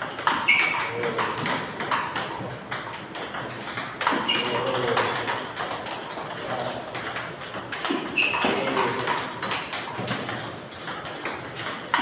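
Table tennis multiball drill: a quick, uneven patter of celluloid balls clicking off the table and off the bats as balls are fed from a basket and driven back with forehands.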